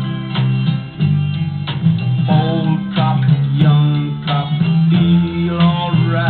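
A vinyl single playing on a Garrard record changer: a late-1960s rock song, plucked guitar over a steady bass line. It is heard with a dull, narrow sound and no top end.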